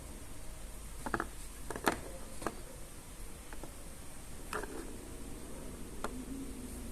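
Scattered light clicks and taps of plastic toy pieces being handled, several irregular ones over a few seconds, the loudest about two seconds in.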